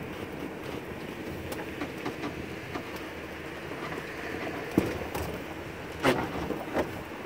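A 1935 Ford convertible driving, heard from inside the cabin: steady engine and road noise, with a few short knocks and rattles from the car, the sharpest just before five seconds in and just after six.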